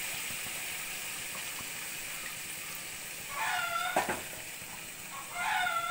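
Freshly added hot water boiling and sizzling in a pan of broken-wheat upma, a steady hiss that slowly fades. A sharp click about four seconds in.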